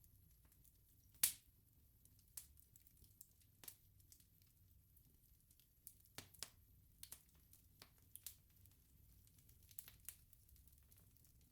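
Wood bonfire crackling: scattered sharp pops and snaps at irregular intervals, the loudest about a second in, over a faint low rumble.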